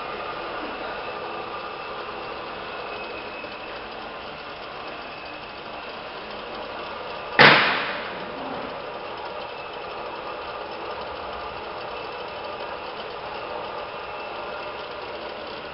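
Marble and granite cutting machine (Tenenco Supercorte TC 46) running steadily with a faint whine, and one sharp bang about halfway through.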